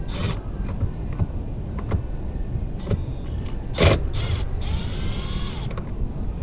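Small clicks and rustling as steering-wheel parts are handled, with one louder sharp clack about four seconds in, over a steady low rumble.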